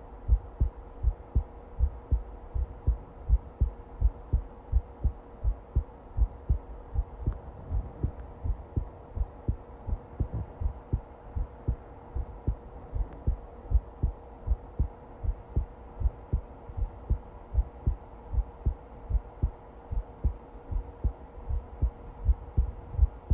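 Heartbeat, a steady run of low thumps at about two to three a second, with a faint steady hum beneath.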